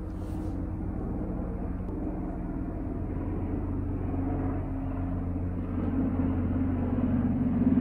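Helicopter flying over, a steady low rumble that grows gradually louder.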